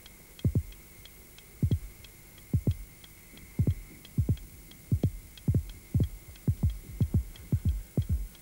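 A newborn baby's heartbeat, amplified: low thumps that start slow, about one a second, and quicken to about three a second. The baby's heart rate is coming back up toward normal as its lungs are inflated with oxygen during resuscitation.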